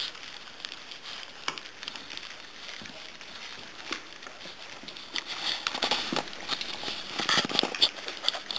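A litter of puppies eating from stainless-steel puppy feeding pans: a steady patter of small clicks and smacks of mouths and food against the metal. It grows busier and louder over the last few seconds.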